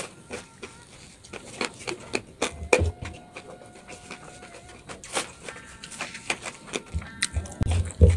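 Close-up chewing and lip-smacking while eating with the hands, a quick irregular run of wet clicks and smacks.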